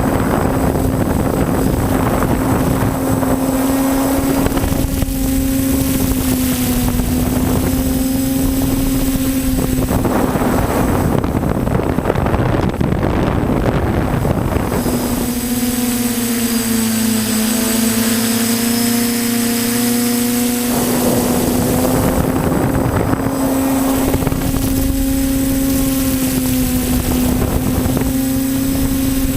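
TBS Discovery quadcopter's electric motors and propellers buzzing steadily in flight, the pitch sagging and rising slightly with the throttle. Wind rushes over the microphone in stretches.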